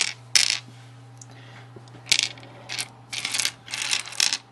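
A resealable plastic pack of chewing-gum pellets being handled and opened: a series of short, separate rattling and crinkling bursts as the packaging is worked and the hard pellets shift inside, over a steady low hum.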